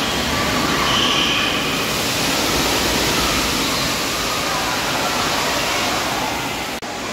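Steady rushing of water pouring and spraying down from an indoor water-park play structure, echoing in a large hall, with faint voices mixed in. The sound drops out for an instant near the end.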